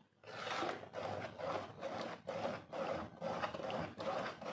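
A spoon stirring thick haleem in a metal pot, scraping and squelching through the dense lentil-and-meat mash in a steady rhythm of about two to three strokes a second, working it together so it does not stick to the bottom.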